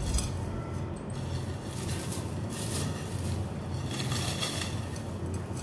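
Dry, brittle pheni strands rustling and crackling in soft, irregular bursts as hands crumble them into a glass dish, over a low steady hum.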